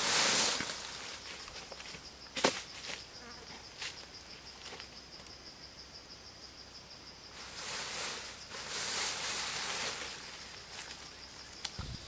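An insect trills steadily, a high, rapidly pulsing buzz. Over it come bursts of rustling from leafy branches being handled, at the start and again from about 7 to 10 seconds in, and a single sharp knock about two and a half seconds in.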